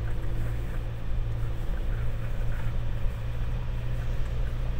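Ford Ranger FX4 Max diesel pickup driving along a rough rocky and gravel track, a steady low engine and road drone with a few light rattles.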